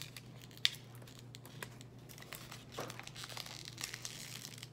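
Paper wrapping of an LOL Surprise Under Wraps toy being peeled and crinkled by hand: a run of small crackles and rustles, with one sharper snap about half a second in.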